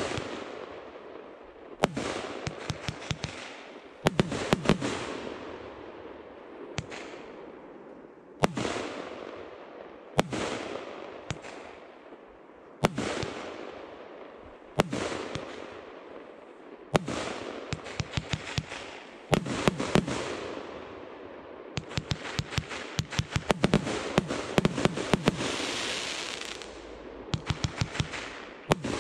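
A 30 mm firework compound cake (J-Fireworks 24 Carat Gold) firing shot after shot, about one every two seconds. Each shot is a sharp bang, then a quick run of pops and an echoing tail. The pops come thicker and almost without a break from about 22 to 28 seconds in.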